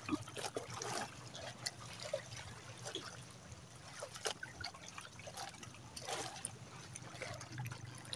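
Shallow seawater trickling and sloshing softly around someone wading through it, with irregular light splashes.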